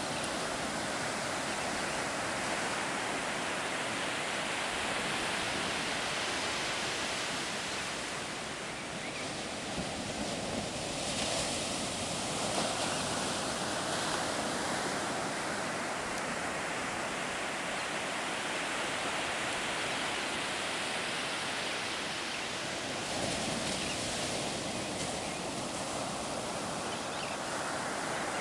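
Ocean surf breaking and washing up a sandy beach: a continuous rush of waves that swells and eases as the breakers come in.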